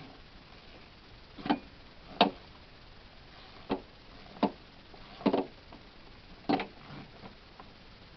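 Hand tools clicking and knocking as they are handled, about six sharp separate clicks spaced irregularly.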